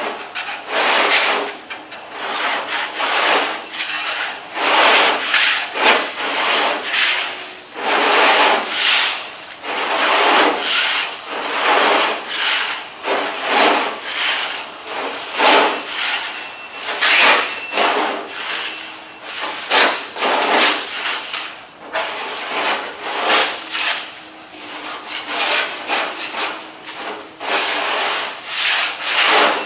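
A hand scraper blade scraping chemically softened paint and primer off a car body panel in repeated push strokes, roughly two a second.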